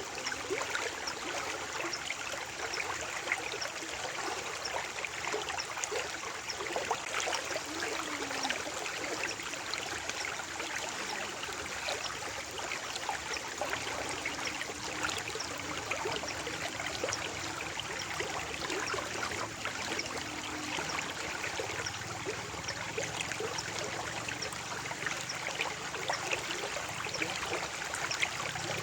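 Stream water flowing steadily, with many small splashes and trickles.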